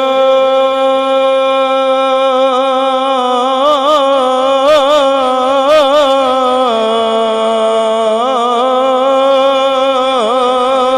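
A man's voice chanting one long, drawn-out note of a Punjabi Sufi verse. It is held steady at first, then wavers in ornamented turns, steps down to a lower pitch about two-thirds of the way through, and adds more turns near the end.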